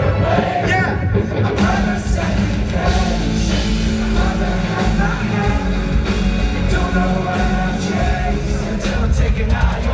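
A live rock band playing loud through a concert PA as heard from within the audience: electric guitar and a heavy bass line that comes in at the start, with some singing over it.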